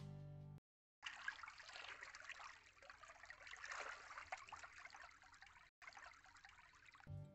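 Guitar music cuts off early. After a moment of silence, a shallow stream of water trickles steadily through weeds, faint and even.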